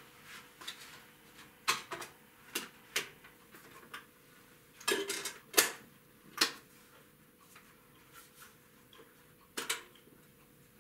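Plastic clicks and snaps of a CD jewel case being opened and a disc being loaded into a Philips portable CD radio: about a dozen separate clicks, a cluster of the loudest around the middle and a double click near the end.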